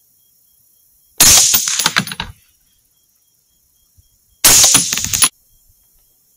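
Two rifle shots about three seconds apart, each a sharp crack trailing off over about a second.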